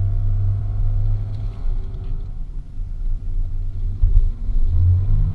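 Nissan Pathfinder's engine running under a low rumble, heard from inside the cabin while driving over sand. It eases off in the middle and picks up again about four seconds in.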